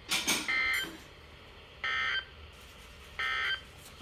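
Emergency Alert System end-of-message data tones: three short, identical electronic warbling bursts about a second and a half apart, which signal the end of the severe thunderstorm warning broadcast. A brief noise comes just before the first burst.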